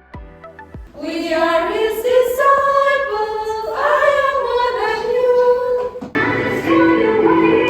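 Voices singing a song together with musical accompaniment. After a quiet first second with a few soft beats, the singing comes in, and the accompaniment grows fuller and louder about six seconds in.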